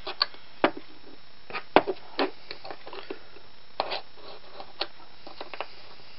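Scattered sharp clicks and light knocks of small metal parts of a Roto window-fitting corner drive being handled and worked loose during disassembly.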